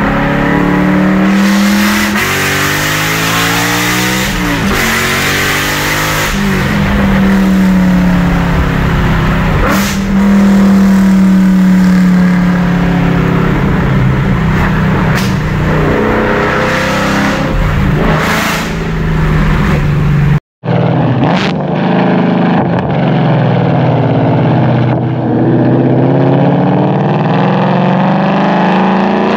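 Ford Mustang GT's 5.0 Coyote V8 with long-tube headers, high-flow cats, an H-pipe and a Corsa axle-back, very loud from inside the cabin, its pitch climbing and dropping repeatedly as the car accelerates. After a short break about two-thirds of the way through, the same exhaust is heard right at the tailpipe in normal driving, with gentler rises and falls.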